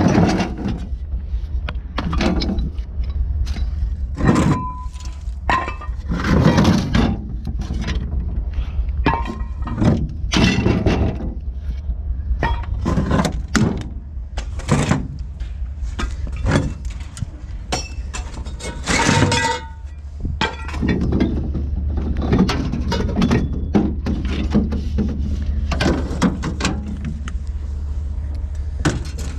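Pieces of cast aluminum scrap being thrown down one after another, a long run of irregular clanks and thuds, some ringing briefly, over a steady low hum.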